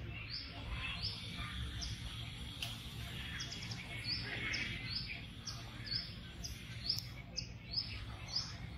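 A small bird chirping over and over in short high notes, about two or three a second, over a steady low rumble of outdoor background noise. A couple of sharp clicks fall in the middle and late part.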